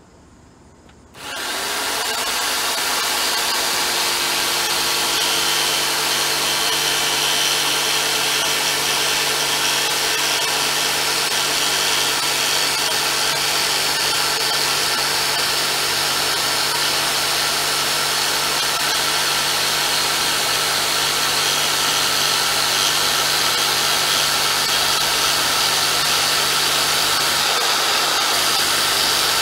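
Jigsaw with a scroll blade cutting half-inch MDF. It starts about a second in and then runs steadily.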